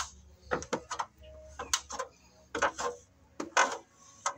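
Irregular knocks and clicks, about a dozen spread unevenly: footsteps and shifting weight on a fiberglass stepladder as someone climbs down it.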